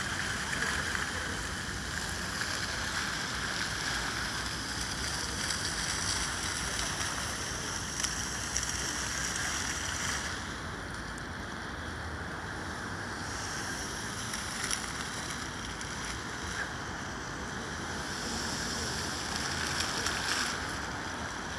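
Steady rushing and splashing of fountain jets falling into a shallow pool, a little quieter from about halfway through.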